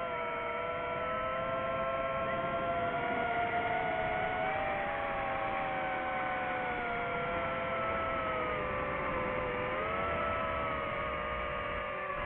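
Multirotor drone's propellers whining, several motor tones drifting up and down in pitch separately as the motor speeds change.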